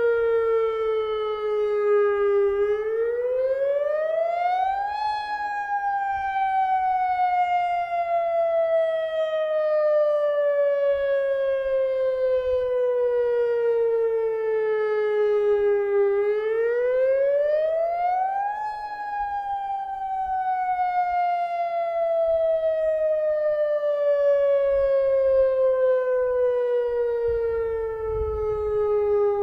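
Federal Signal Modulator electronic warning siren sounding a wail during a lahar warning system test. Its tone rises quickly for about two and a half seconds, then falls slowly for about eleven seconds, and the cycle repeats twice, with a third rise starting near the end.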